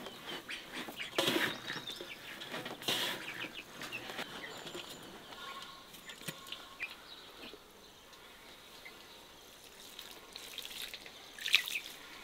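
Hands kneading and squeezing moist bulgur köfte dough in a large aluminium basin, making irregular wet squelching and crumbly rustling. It is busiest in the first few seconds, nearly stops in the middle, and picks up again near the end.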